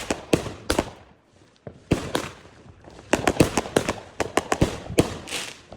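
Fireworks going off: clusters of sharp bangs and crackles in quick succession, with a short lull about a second in and a dense crackling run near the end.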